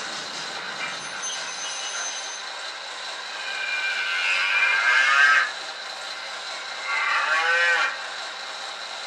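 Cattle mooing twice, a long call a few seconds in and a shorter one about two seconds later, over a steady hum. It is the lowing of livestock sounded for the model cattle vans going by.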